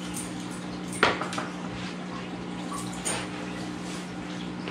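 Steady low hum from aquarium equipment, with two handling knocks from a plastic fish-transport bucket, about a second and three seconds in.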